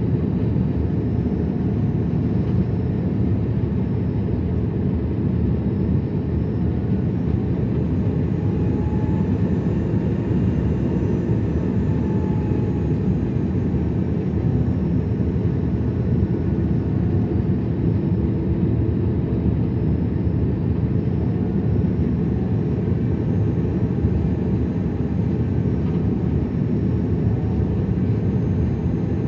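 Airbus A330 jet engines and airflow heard inside the cabin: a steady deep rumble with faint whining tones that drift slowly up and down in pitch.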